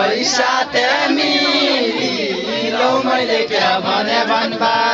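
Many voices singing together in a chant-like unison, loud and steady.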